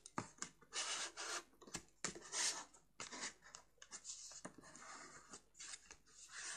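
Folded cardstock being creased by hand: fingers rubbing and pressing along the score lines of a box card to reinforce the folds, a series of soft, irregular papery swishes with a few light clicks.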